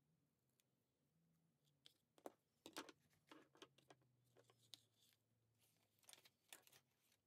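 Faint rustling and light taps of hands handling paper and card on a desk, scattered through the second half, under a faint low hum.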